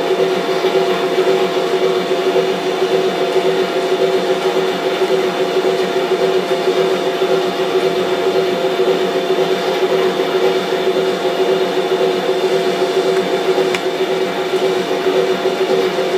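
On30 O scale model train running on the layout: a steady motor hum with several fixed tones and no rhythm.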